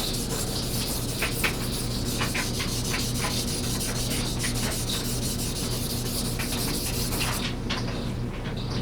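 Kitchen paring knife being ground on a King 1000-grit water stone: repeated back-and-forth rasping strokes as the edge bevel is reprofiled thinner, with a short let-up near the end.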